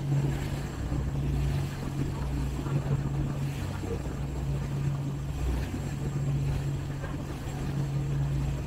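Tour boat's engine running under way, a steady low hum that holds its pitch.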